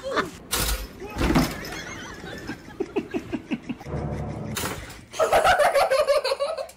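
People's voices and laughter from home-video clips, broken by a few sharp knocks, with a loud wavering vocal outburst near the end.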